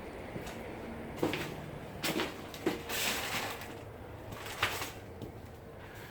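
A few scattered knocks and clunks over a low steady hum, with a longer scraping or rustling stretch about three seconds in.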